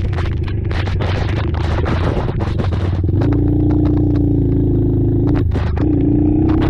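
Racing ATV engines running at held revs, over clattering and scraping. For about the first three seconds there are many sharp clicks and scrapes; after that a steady engine note holds, with a short break near the end.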